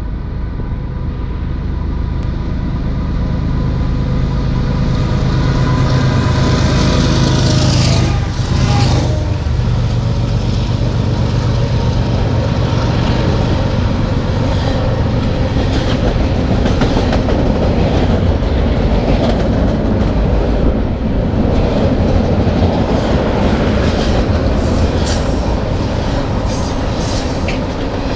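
Two GE ES44AC diesel-electric locomotives, each a V12 diesel, run louder as they approach and pass beneath about eight seconds in. Then comes the steady rumble and clickety-clack of tank cars rolling past on the rails.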